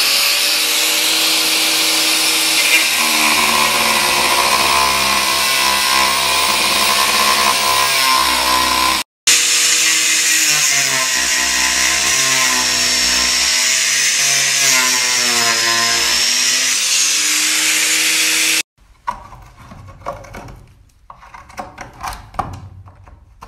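Angle grinder running at full speed and cutting into a red plastic well riser, its pitch wavering as the disc bites. It breaks off for an instant about nine seconds in and stops near the end, leaving quieter, scattered scraping while the cut edge is trimmed by hand.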